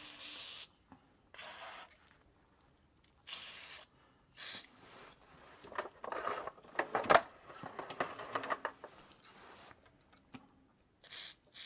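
WD-40 aerosol can sprayed in several short hissing bursts onto rusty bottom bracket threads, with a stretch of knocking and rubbing from handling the bicycle and can in the middle.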